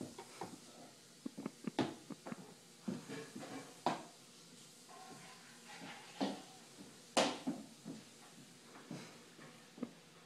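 A toddler's boots stepping unevenly on a hardwood floor: scattered knocks and thuds at an irregular pace, the loudest a sharp knock about seven seconds in.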